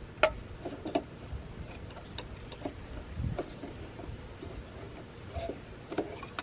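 Metal can of deck stain being pried open and handled: scattered light metallic clicks and taps, the sharpest about a quarter second in.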